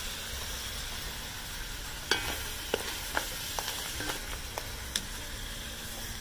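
Crabs frying in sofrito in a pot, a steady sizzle. From about two seconds in, a spatula stirring them knocks sharply against the shells and pot about seven times.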